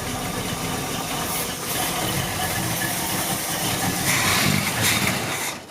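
1974 Pontiac Firebird's engine being cranked by the starter, turning over without catching, and stopping abruptly near the end. A failed start on a car that has been sitting for a long time.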